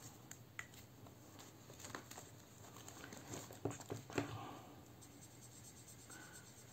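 Faint handling sounds: a few soft clicks and taps as a Sharpie marker is uncapped and a circle is coloured in on a paper savings tracker inside a plastic binder sleeve.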